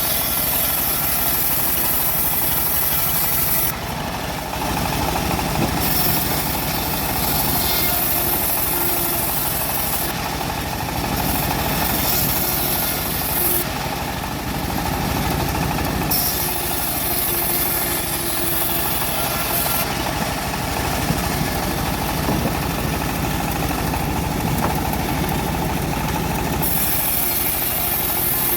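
Homemade engine-driven bandsaw mill running steadily while its blade saws through a teak log. A high hiss drops out and returns several times over the engine's steady run.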